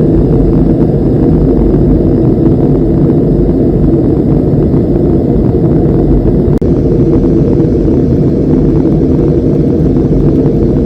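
Steady, loud low-pitched cabin noise inside a Boeing 787 in flight: engine and airflow noise heard from the passenger cabin during the descent.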